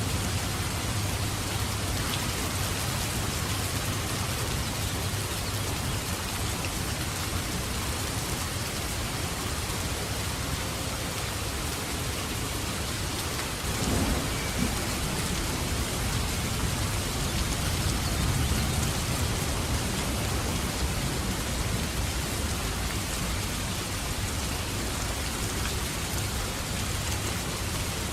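Steady heavy rain with thunder rumbling low underneath, swelling at the start, breaking into a louder rumble about halfway, and swelling again a few seconds after.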